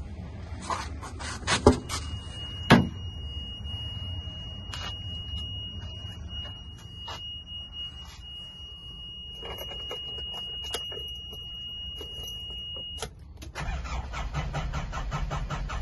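Two loud knocks from the cab door of a 1998 Nissan Atlas fire truck, then a steady high-pitched electronic warning tone for about eleven seconds that cuts off. Near the end the starter begins turning over the 3.2-litre diesel engine with a rhythmic low pulsing.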